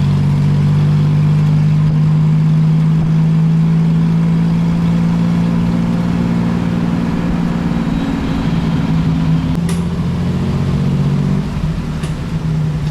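A motor vehicle engine running steadily and close, a loud even drone that shifts in pitch a little about two-thirds of the way through and eases slightly near the end. There is a brief click near the ten-second mark.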